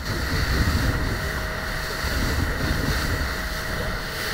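Wind buffeting the microphone over the steady rush of water along the hull of a Grady-White powerboat under way on choppy water, with a faint steady tone beneath.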